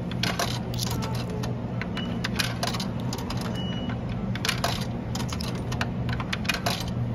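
Coins fed one at a time into a soda vending machine's coin slot, each dropping through the coin mechanism with a metallic clink. Many clinks come at irregular intervals over a steady low hum.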